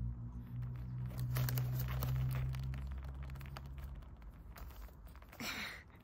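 Newspaper cage lining rustling and crinkling, with sharp clicks, as a feral pigeon shifts about and pecks at a hand. A brief louder scuffle comes near the end. A low steady hum runs underneath and stops about four seconds in.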